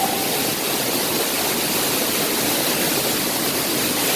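Waterfall: falling water rushing steadily and evenly, with no let-up.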